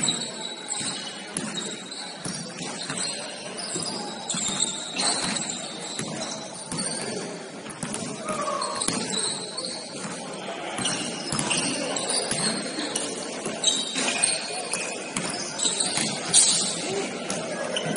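Sounds of basketball play in a gym: the ball bouncing on the court, short high sneaker squeaks and scattered voices, with no single loudest event.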